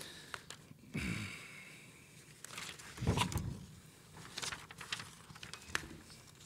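Room tone of a hall with papers and small objects handled close to a podium microphone: scattered soft rustles and clicks, with two brief low voice sounds about one and three seconds in.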